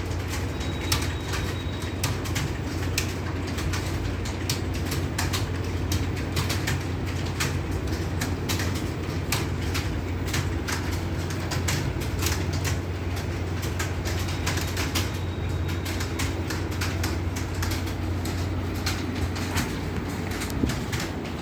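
Fast typing on an Acer computer keyboard: a dense, uneven stream of keystroke clicks, several a second, over a steady low hum.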